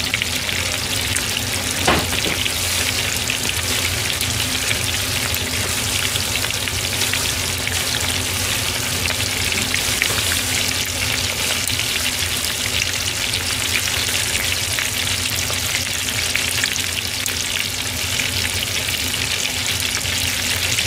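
Chicken karaage deep-frying in hot oil, a steady dense sizzle, in oil run at high temperature for a short fry. A single sharp knock about two seconds in.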